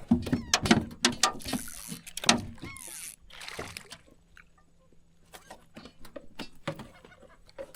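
Knocks, clicks and splashes of a small redfish being landed and handled in a fishing boat, busiest in the first few seconds and then sparse. A faint steady hum runs under it from about two seconds in.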